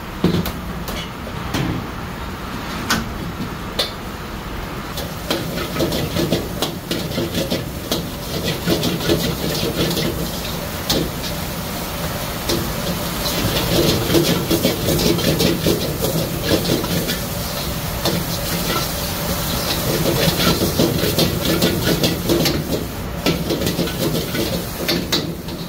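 Metal ladle scraping and clanking against a wok as fried rice is stir-fried, a rapid clatter of strikes over a steady gas-burner rumble and sizzle. The clatter grows busier and louder about halfway through.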